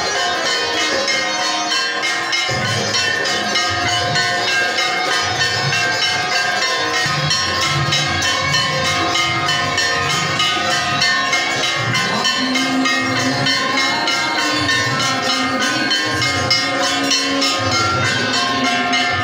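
Temple bells ringing on and on, many at once, with a crowd's voices underneath.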